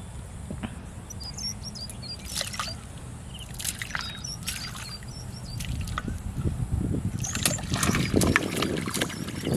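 Water splashing and trickling in a shallow weedy canal as hands dip and scoop in it, getting louder over the last few seconds.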